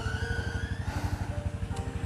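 A small engine running steadily at idle, with a rapid, even pulse.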